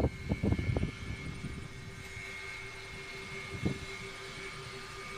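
A low, gusty rumble for about the first second, then a steady motor hum with an even high whine.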